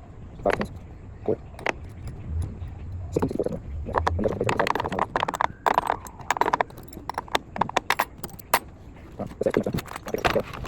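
Metal wrenches clinking and clattering against one another as they are picked up, sorted and laid down, in many sharp, irregular clinks.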